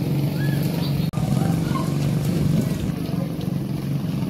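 A steady low motor drone, with a few faint short bird chirps over it. The sound drops out for an instant about a second in.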